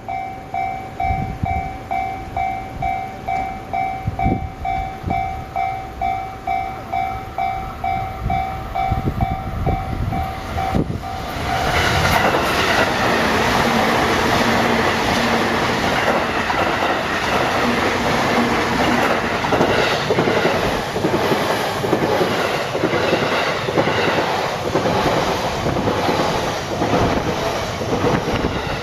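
Japanese level-crossing warning bell dinging about twice a second. About eleven seconds in, a train arrives and runs through the crossing, its wheels clattering over the rail joints and drowning out the bell.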